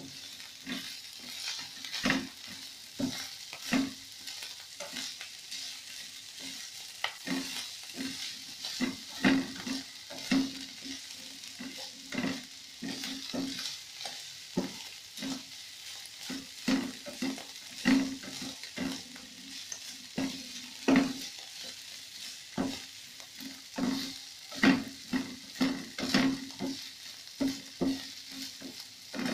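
Diced chicken and green capsicum sizzling in a nonstick frying pan, its juices cooked off, while a spatula stirs and turns them with repeated scrapes and knocks against the pan about once or twice a second.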